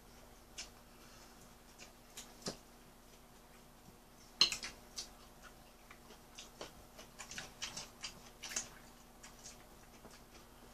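Chopsticks tapping and clicking against plates and bowls while someone eats, in irregular light clicks with one sharper clack about four and a half seconds in.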